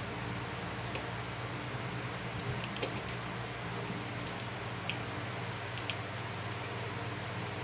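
Scattered small clicks and taps of repair tools and tiny parts against an iPhone being taken apart, about six in all, over a steady low electrical hum.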